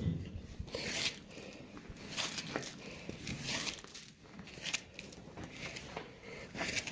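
Irregular dry rustling and crunching: a scatter of short crackles with no steady rhythm.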